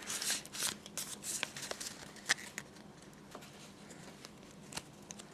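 Pokémon card booster pack being opened and its cards handled: quick rustles and crinkles of foil wrapper and card stock over the first two to three seconds, then only a few soft clicks.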